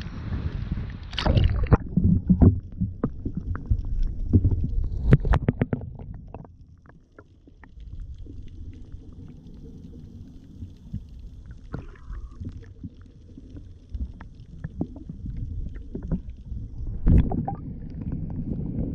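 Water slapping and splashing against an action camera held at the surface, with sharp splashes. After about six seconds the sound turns to a muffled, low underwater rumble with faint clicks while the camera is submerged. A loud splash near the end marks it breaking back through the surface.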